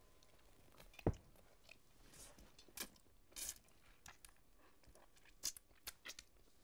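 A man's mouth noises with a mouthful of food: chewing and sputtering. There is a sharp click about a second in, then several short breathy bursts through a covered mouth.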